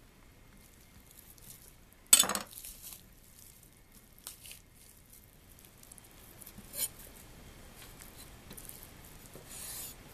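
Raw beef tenderloin being pulled apart by hand on a wooden cutting board: faint wet peeling as the side muscle is torn away. A single sharp knock about two seconds in, as a chef's knife is set down on the board, and a smaller click near seven seconds.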